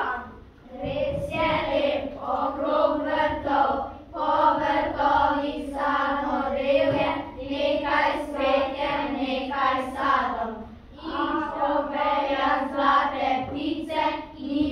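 Children singing a song together, in phrases with short pauses between them.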